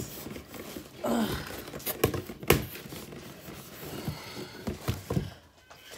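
Cardboard shipping box being opened and handled: flaps and packing rustling, with several sharp knocks and taps, the loudest about two and a half seconds in.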